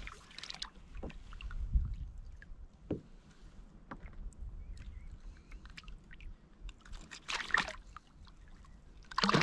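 Water sloshing and lapping around a kayak, with scattered clicks and knocks from rod and reel handling as a small pollock is landed and unhooked. Two short splashes come near the end, as the fish is dropped back into the sea.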